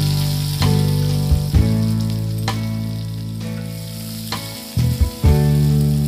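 Chopped onions sizzling and frying in hot oil in a black iron kadai, stirred with a wooden spatula. Background instrumental music with sustained notes changing about once a second plays over it.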